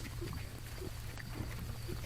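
Feral hogs grunting: a series of short, low grunts, about one every third of a second.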